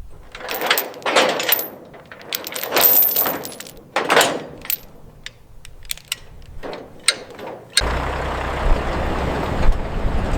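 Metal chain clinking and rattling, with scraping and rustling swells, as a load is chained down on a trailer. About eight seconds in it gives way suddenly to the steady rumble of a vehicle on the road, with wind noise on the microphone.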